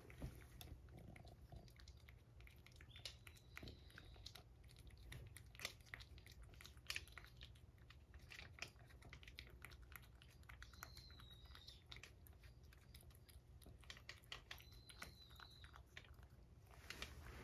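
Cat licking and chewing a tuna Churu treat paste from a ceramic bowl: faint, irregular wet clicks and smacks of tongue and jaw.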